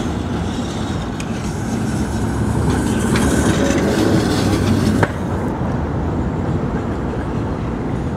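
Tatra T3 trams running on street track: a steady rumble of wheels on rail that swells as a car passes close by, with a few clicks. It changes abruptly about five seconds in to a slightly quieter rumble of another tram approaching.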